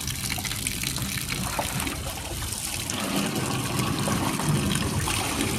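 Water from a hose pouring and trickling into a metal stock tank, with a lion's paws splashing and sloshing in the water.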